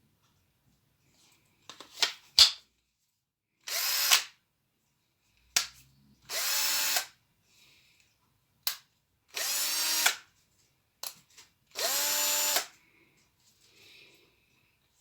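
Makita DF330DWE 10.8 V cordless drill-driver run in four short bursts of about a second each, the motor spinning up to speed and stopping each time. Sharp clicks come between the runs, the loudest pair about two seconds in.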